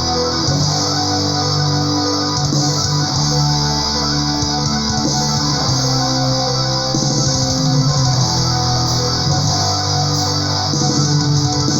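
Neoclassical melodic metal recording: electric guitars and bass guitar playing sustained chords that change every second or two.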